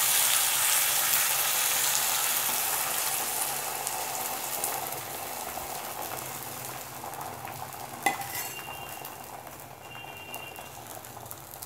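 Egg batter with masala onions sizzling in oil on a hot tawa, loudest just after it is poured and fading slowly as the omelette sets. One light knock about eight seconds in.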